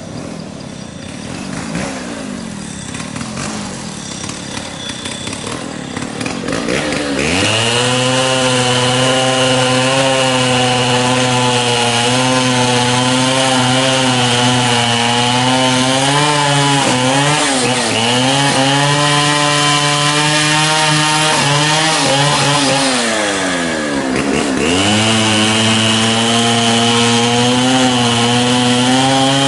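A small engine comes in suddenly about seven seconds in and runs hard at high revs. Its pitch sags and recovers three or four times as it takes load, most deeply near the end.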